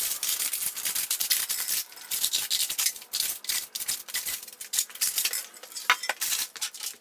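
Clear plastic wrapping crinkling and rustling in a rapid, irregular crackle as it is pulled off a new steel tire carrier, with one sharper sound about six seconds in.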